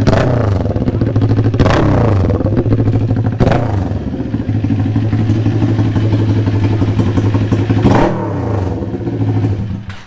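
Kawasaki Ninja 400 parallel-twin engine running through an aftermarket SC Project slip-on muffler: a steady idle blipped up into sharp revs three times in the first few seconds and once more about eight seconds in, each time falling back to idle. The engine note cuts out just before the end.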